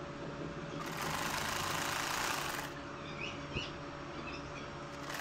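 Vintage sewing machine running, stitching a pintuck for about two seconds before it stops.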